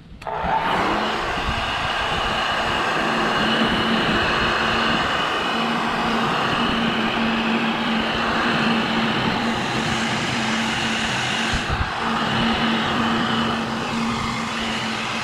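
Heat gun switched on about half a second in and running steadily, its fan blowing with a constant low hum, warming the vinyl seat cover so it will stretch.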